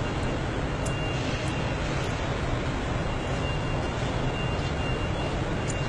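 Steady, even roar of a car-factory hall, heaviest in the low end, with a faint thin high whine that comes and goes.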